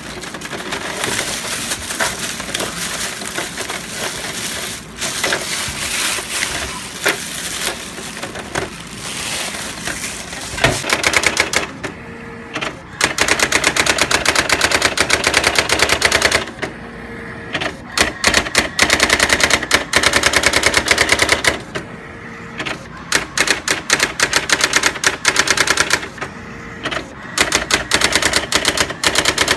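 Brother GX-6750 daisy-wheel electronic typewriter printing: rapid, even clacks of the daisy wheel in runs of several seconds, with short pauses between runs. Before the printing starts, about the first ten seconds hold irregular handling noise.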